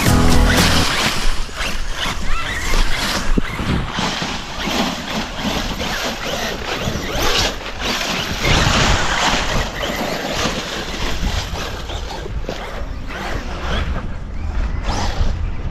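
A background song cuts off about a second in, followed by irregular scratchy crunching and rattling, typical of electric RC car tyres scrabbling over loose dirt and gravel.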